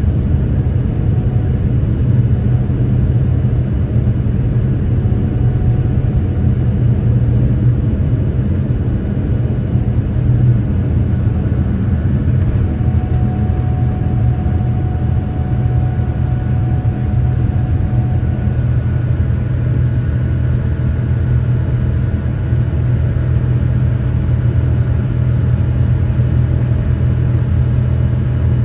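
Steady, loud in-cabin rumble of the Boeing 787-10's General Electric GEnx jet engines and airflow, with faint steady tones above it.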